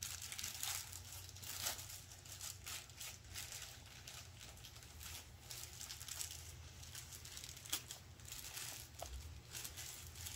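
Faint, irregular rustling and crinkling of parts packaging in a cardboard box as parts are handled and taken out, over a steady low hum.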